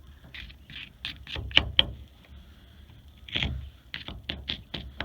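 A screwdriver scraping dirt off the metal body of a trailer air brake valve in short, irregular strokes, about a dozen, with the two sharpest scrapes a little over a second and a half in.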